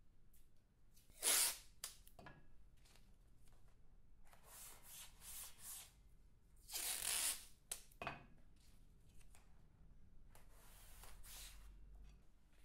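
Masking tape pulled off the roll four times with a ripping sound, the loudest about a second in and again in the middle, with small taps and clicks of hands and tape on the screen between.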